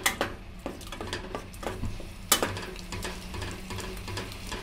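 A spatula stirring and scraping thick carrot halwa in a metal pressure cooker pot, with scattered knocks against the pot's side and bottom; the sharpest knock comes a little past halfway.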